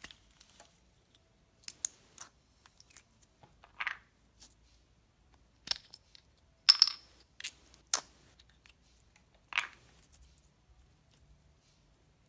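Small hard-plastic slime capsule being handled and its snap-on lid pried off: a scattering of sharp plastic clicks and snaps, the loudest a little past the middle.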